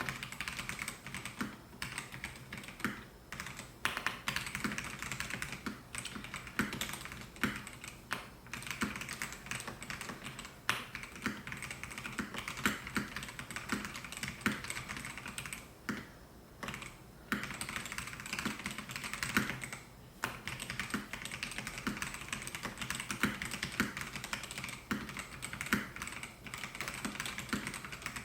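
Melgeek Mojo68 mechanical keyboard with white switches being typed on at a steady pace, a dense run of key clicks and bottoming-out taps with a couple of brief pauses about two-thirds of the way through.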